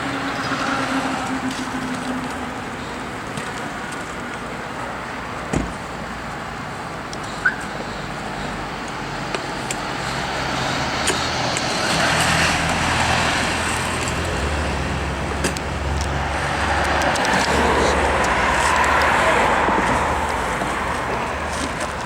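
Street traffic: motor vehicles passing with engine hum, the noise swelling twice, about halfway through and again near the end. A couple of sharp knocks come early on.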